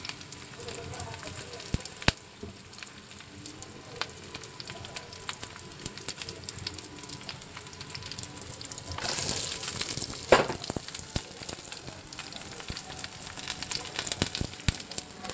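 Chopped onions sizzling in hot oil with mustard seeds and curry leaves in a kadai, a steady crackling hiss scattered with sharp pops. The sizzle grows louder about nine seconds in, with one sharp clack just after.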